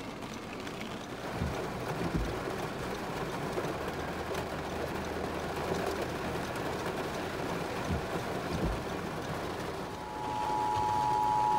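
Heavy rain pouring onto a moving car, heard from inside the cabin as a steady hiss mixed with road noise, with a few low thumps. Near the end a steady electronic tone sounds for about two seconds.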